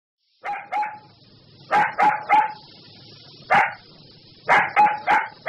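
A dog barking: about ten short barks in quick groups of two or three, with pauses of about a second between the groups.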